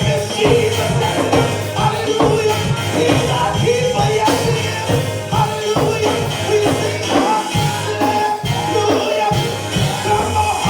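Live gospel praise music with a steady beat, band and singing voices, with tambourine.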